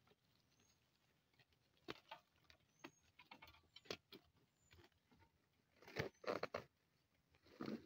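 Near silence with scattered faint clicks and knocks, a cluster of louder ones about six seconds in and again near the end.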